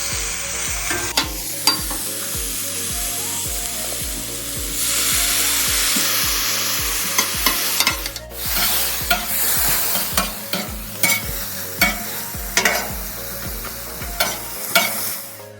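Food sizzling on a Blackstone flat-top griddle, with metal spatulas clicking and scraping on the steel surface as it is stirred and turned.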